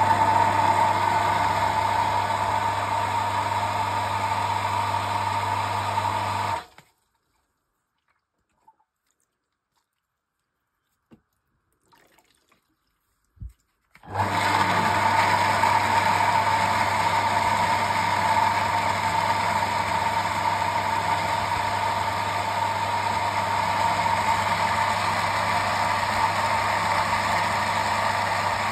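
Metabo pumping station's electric pump running with a steady hum and whine. It shuts off about seven seconds in, leaving near silence with a few faint clicks. About seven seconds later it starts up again and keeps running.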